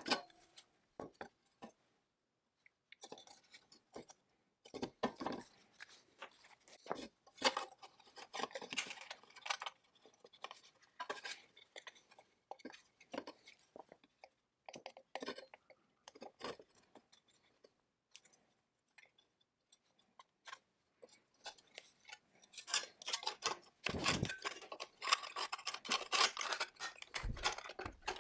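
Metal chainsaw engine parts handled on a workbench: scattered clicks, taps and clinks. Near the end the handling gets busier, with a couple of dull thumps as a sheet-metal cover is fitted over the ignition coil.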